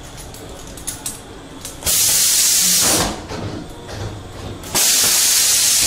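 Two loud blasts of hissing air, each about a second long and starting suddenly, the second about three seconds after the first: pressurised air or fog jets of the kind fired as scare effects in a haunted-house attraction.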